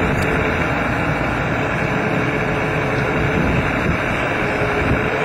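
Radio-controlled Wedico scale model of a Caterpillar 345D excavator working, its hydraulic pump running with a steady whine over an even mechanical hiss as the bucket digs in soil.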